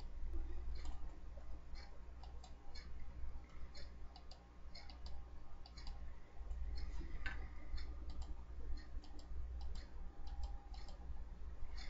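Faint, irregular clicking of a computer mouse, two or three clicks a second, over a low steady hum.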